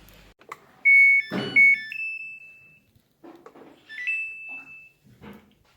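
Electronic control-panel beeps from a Samsung washing machine: a short chime of several notes stepping up in pitch about a second in, and a second two-note rising chime about three seconds later. A knock sounds during the first chime.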